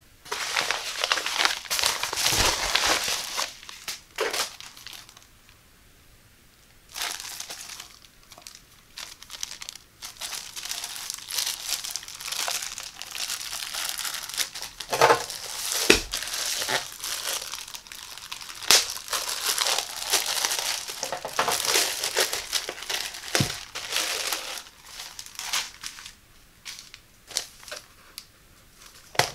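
Crinkling and rustling of plastic packaging as a padded mailer is opened and shower curtain liners sealed in clear plastic bags are handled. It goes on in close, dense bursts, with a short pause a few seconds in and a few sharp taps later on.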